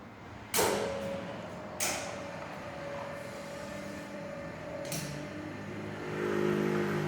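Three sharp metallic bangs, the first leaving a ringing tone behind it, then a machine's steady hum comes in near the end.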